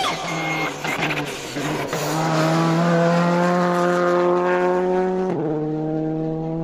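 Rally car engine running hard as the car passes on a dirt stage. Its pitch climbs slowly, drops suddenly a little after five seconds in as the car shifts up a gear, then holds steady.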